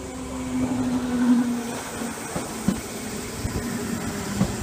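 Electric train pulling into a station: a steady motor whine that sinks slightly in pitch as it slows and fades about halfway through, followed by a few sharp clunks from the wheels and running gear under a low rumble.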